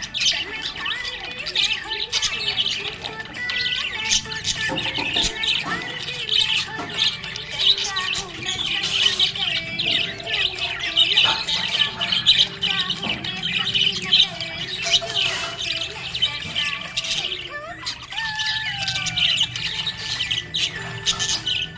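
Budgerigars chirping and chattering continuously, with many quick high calls overlapping.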